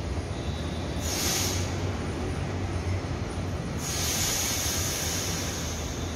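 A Taiwan Railway EMU900 electric multiple unit standing at the platform with a steady low hum from its equipment, and two hisses of compressed air: a short one about a second in and a longer, louder one from about four seconds.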